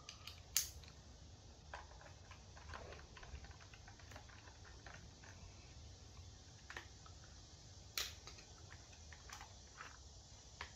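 Screwdriver working screws out of an Earthwise electric blower's plastic housing, with scattered light clicks and knocks of the plastic parts being handled. A sharper click comes about half a second in and another about eight seconds in.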